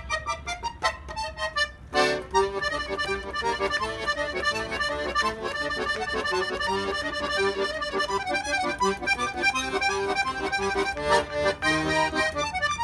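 Bayan (Russian button accordion) playing a tune: short detached notes at first, then a loud chord about two seconds in, running into a continuous melody over bass notes.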